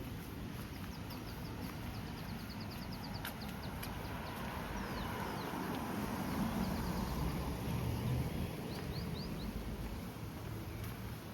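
Strong wind rumbling on the microphone, swelling in the middle, while a small bird chirps in quick high trills early on, a few more around the middle and near the end.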